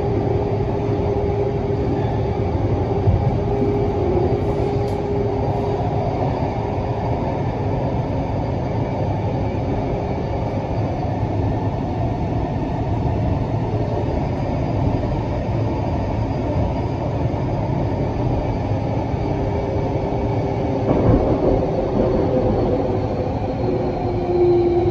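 Canada Line Hyundai Rotem metro train running through a tunnel, heard from inside the car: a steady rumble of wheels on rail with a faint steady hum from the drive, a little louder and rougher near the end.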